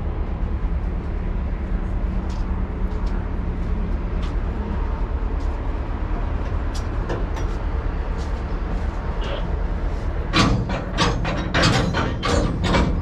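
Steady low rumble of a running vehicle. In the last three seconds comes a quick run of sharp, loud clacks and knocks.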